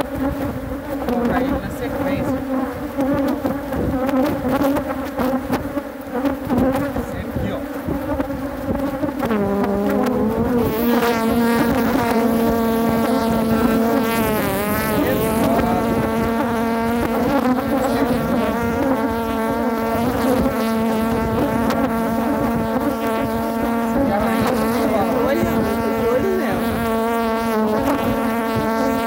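Honeybees buzzing in numbers around an opened hive, stirred up as its frames are worked: a continuous hum that becomes louder and steadier about a third of the way in as bees fly close to the microphone, with a brief dip in pitch around the middle.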